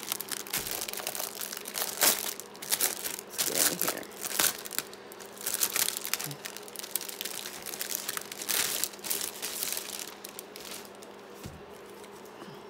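Clear plastic wrap crinkling in irregular bursts as hands pull it off a string-tied bundle of old paper documents, dying down to a faint rustle near the end.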